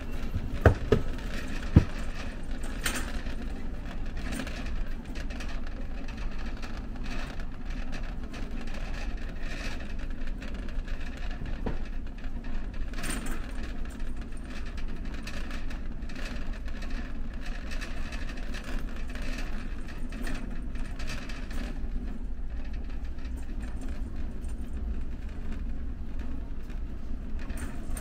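Warehouse store ambience: a steady low rumble with faint, scattered clatter of shoppers and goods. Two sharp knocks come about a second and two seconds in.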